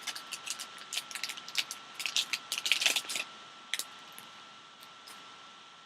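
A quick, dense run of small clicks, taps and scratchy rustles from hands handling cards and packaging on a table. It thins out to a few scattered clicks after about three seconds.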